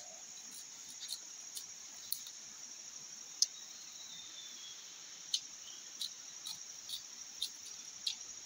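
Steady high-pitched drone of forest insects, with about ten sharp, irregularly spaced knocks of a machete chopping and splitting sticks.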